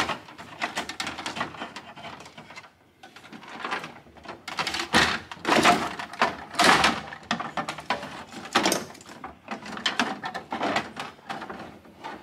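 The plastic upper dash panel of a 2007–14 Chevy Silverado being worked up and out over the steering column: irregular scraping, rubbing and knocking of plastic against plastic, with the loudest scrapes about halfway through.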